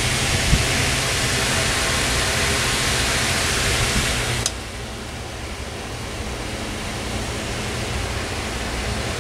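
Windmere DF-7 7-inch oscillating fan running, a steady rush of air with a low motor hum. About four and a half seconds in, a click at its switch and the air noise drops to a lower, quieter level: the fan's switch is acting flaky.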